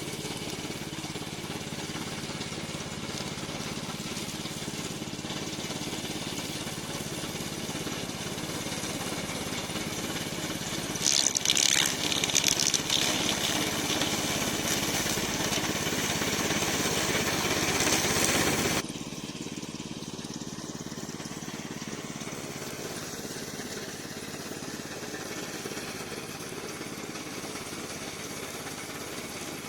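Remote-control tracked brush mower running, its engine a steady drone. About a third of the way in it grows louder and harsher for several seconds, then drops back abruptly to a quieter, steady run.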